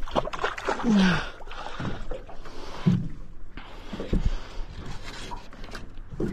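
A hooked mackerel being lifted out of the water and swung aboard an aluminium boat: water splashing, scattered knocks and rattles against the hull, and a couple of short grunts about one and three seconds in.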